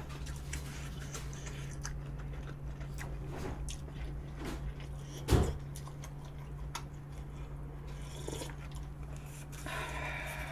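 Close-miked eating: slurping and chewing cold buckwheat noodles from a bowl of dipping broth, with small wet mouth clicks throughout and one louder thump about five seconds in.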